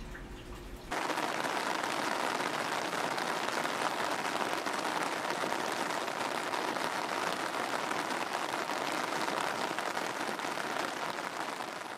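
Rain falling on wet asphalt: a dense, even patter of drops that starts abruptly about a second in and fades near the end.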